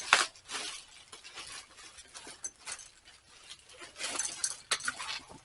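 Rummaging through discarded store goods in a dumpster: items clink, knock and rattle against each other. There is a sharp knock just after the start and a busier flurry of clatter and rustling about four to five seconds in.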